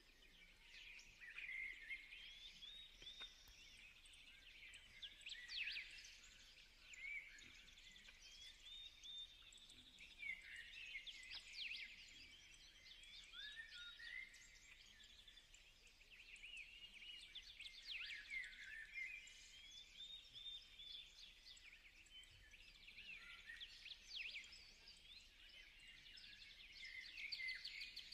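Faint birdsong: many small birds chirping and twittering in quick, overlapping calls throughout.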